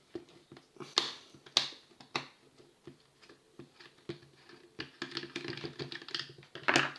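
Flathead screwdriver clicking and scraping in the screws of a plastic power-drill casing as they are worked loose. There are sharp clicks about one, one and a half and two seconds in, and a louder one near the end.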